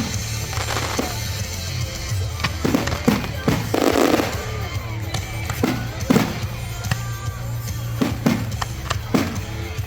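Aerial fireworks shells bursting in quick succession, with music playing underneath.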